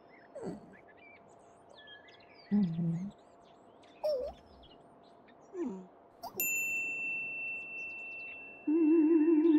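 Cartoon sound design: birds chirp softly in the background while short wordless vocal grunts and hums come now and then. About six seconds in, a bright high ding rings and fades over about two seconds. Near the end a loud wavering theremin tone starts up.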